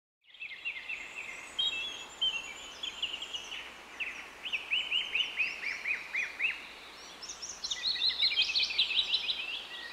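Several small birds chirping and calling over faint outdoor background noise. Their calls are quick, repeated, downward-sweeping chirps, and they crowd together into a dense chorus in the last few seconds.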